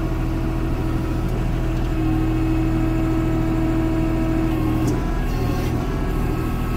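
Kubota L3560 tractor's four-cylinder diesel engine running steadily under load, heard from inside the cab. A steady whine joins it about two seconds in and cuts off near the five-second mark.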